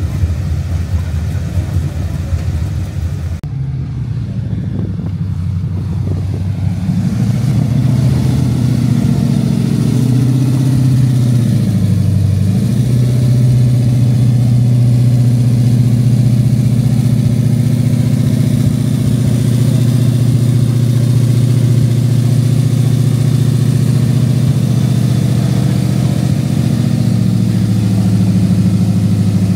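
Ford GT40 replica's engine idling steadily with a deep, even note, the revs dipping and picking back up once about a third of the way in. Before that, a rougher engine running unevenly.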